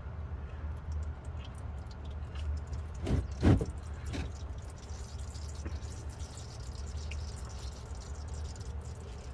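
Oil dripping and spattering as the oil filter is worked loose by hand under the truck, with a short cluster of louder knocks about three seconds in. A steady low hum runs underneath.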